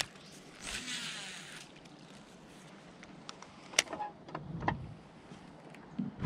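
Baitcasting reel handled during a cast: the spool gives a brief whir about a second in, then comes a sharp click and a few soft knocks of the reel and rod against the boat.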